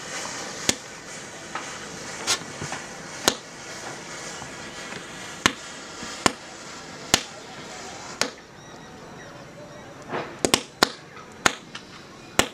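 A chain of matchsticks burning, with sharp irregular cracks as match heads flare one after another over a steady fizzing hiss. The hiss drops away about eight seconds in, and a quick run of cracks follows near the end.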